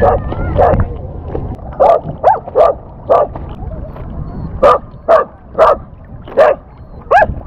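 A golden retriever–cocker spaniel mix barking repeatedly: about ten short, sharp barks, roughly one every half second, some rising in pitch like yips.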